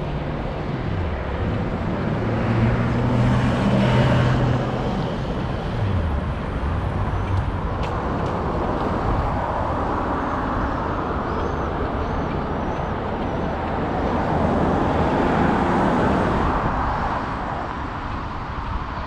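Road traffic passing on a wide city avenue: an engine's pitched drone is loudest a few seconds in and drops in pitch as the vehicle goes by, then a steady hiss of tyres from passing cars swells and fades.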